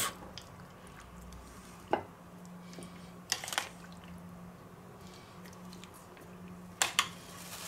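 A spoon scooping creamy potato salad out of a stainless steel bowl onto a plate: a few short clicks and scrapes as the spoon knocks the bowl and plate, over a faint steady hum.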